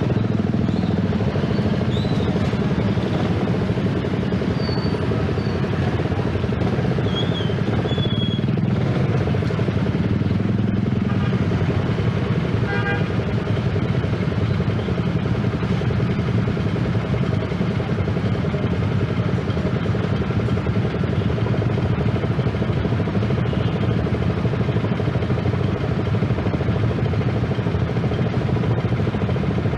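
Small motorcycle engines running in dense stop-and-go traffic: the Yamaha 115 cc underbone's single-cylinder four-stroke slows and then idles among other idling motorbikes. A brief horn toot sounds about 13 seconds in.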